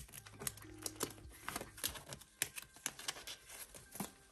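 Photocards handled and slid into the clear plastic pockets of a binder page: a string of soft, irregular clicks and crinkles of card and plastic sleeve.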